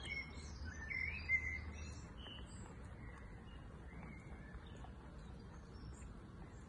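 Small birds chirping and twittering, busiest in the first couple of seconds and thinning out after, over a steady low background rumble. A single short click comes about a second and a half in.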